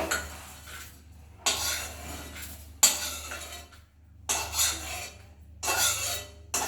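A spatula scraping and clinking against a pan in several separate strokes, with one sharp clink about halfway through, as the dry-roasted whole spices (dried red chillies, cumin, coriander seeds) are scooped out.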